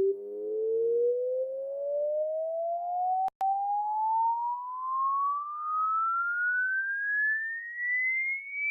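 Electronic test tone gliding steadily upward in pitch, from a low hum toward a high whistle, as a hearing-range frequency sweep. It swells and dips slightly about once a second, and cuts out for an instant a little over three seconds in.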